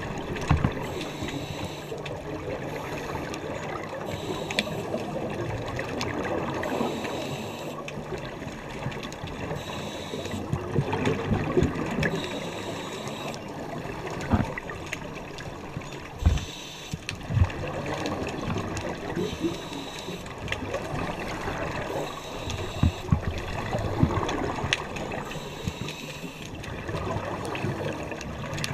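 Muffled underwater bubbling of scuba divers' regulator exhalations, swelling in surges every five or six seconds, with a few sharp clicks and knocks, heard through a waterproof action-camera housing.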